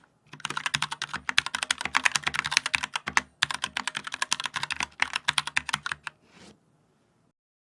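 Fast typing on a mechanical keyboard: rapid runs of key clicks with a short break about three seconds in, stopping about six seconds in.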